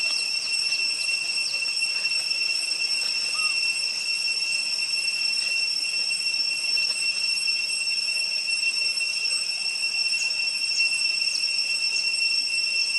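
Cicadas droning on one steady high pitch, with a few faint short chirps falling in pitch near the start and again about ten seconds in.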